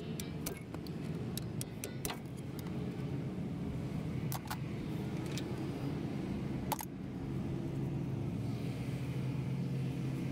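Scattered sharp metal clinks of hand tools working on a heavy truck's wheel hub and drum-brake assembly, the sharpest about seven seconds in, over a steady low engine hum.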